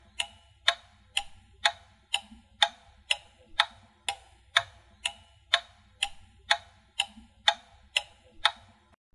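Clock ticking steadily, about two sharp ticks a second, stopping shortly before the end.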